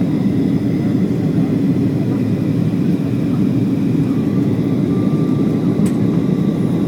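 Steady low drone of an aircraft's engines and airflow, heard from inside the cabin, with a faint high steady whine. There is one short click about six seconds in.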